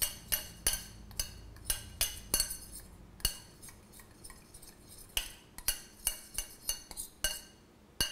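A utensil stirring flour and spices in a glass mixing bowl, clinking against the glass in quick, irregular taps, each with a short ringing after it, with a lull around the middle.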